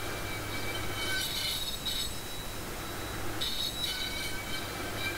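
Milling machine running with a slitting saw splitting the big end: a steady hum and whine, with two short bursts of high-pitched squeal as the saw cuts metal, about a second in and again after three seconds.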